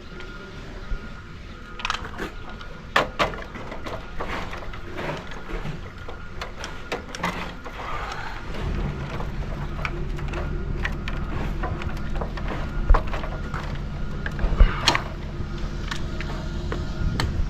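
Scattered clicks and knocks, then about nine seconds in an engine starts running with a steady low hum that carries on.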